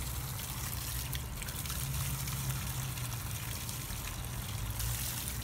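Water running from a garden hose and splashing over a plucked chicken carcass as it is rinsed, a steady trickling and splashing.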